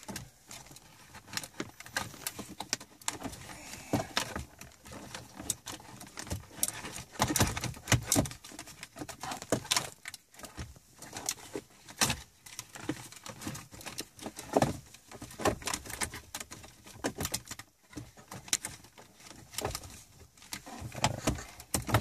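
Audi Q7 centre-console trim pieces being handled and pressed into place by hand: an irregular run of plastic clicks, taps and rattles, with a few louder knocks.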